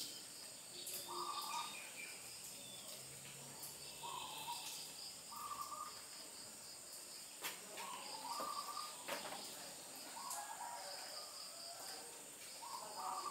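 Evening countryside ambience: insects keep up a steady high-pitched drone and pulsing cricket chirps, while a bird gives short calls every second or two. A few sharp clicks come in the middle.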